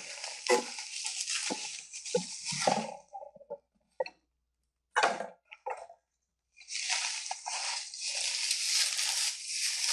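Plastic bubble wrap crinkling and rustling as a bundle is lifted out of a cardboard box, then a few scattered knocks from the cardboard box being moved. About two-thirds of the way in, steady crinkling of the bubble wrap being handled starts again.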